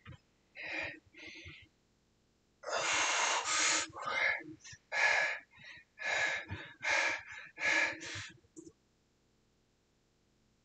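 A man breathing hard through the strain of holding a wall sit with a weight plate. After a few soft breaths comes a run of about eight quick, forceful gasps and exhales from about three to eight seconds in.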